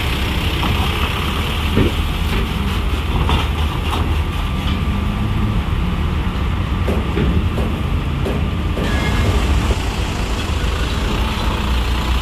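Loaded trucks' diesel engines running as they drive off a ferry's ramp, a steady low rumble, with rain falling and a few sharp knocks from about two seconds in.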